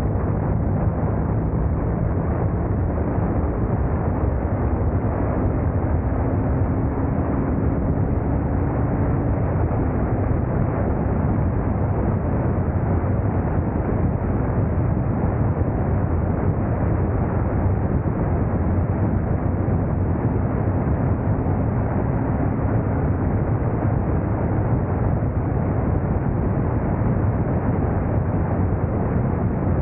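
Motorcycle riding at speed: a steady rush of wind over the camera microphone, with the engine's hum running faintly underneath and shifting slightly in pitch now and then.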